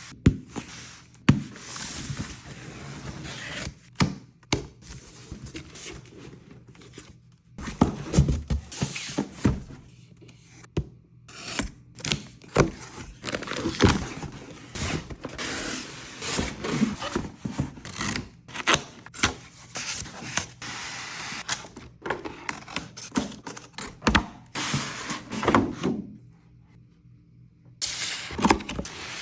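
A cardboard box and its packaging being handled and opened by hand: irregular thunks, knocks and scrapes with rustling between them, and a short quiet gap near the end.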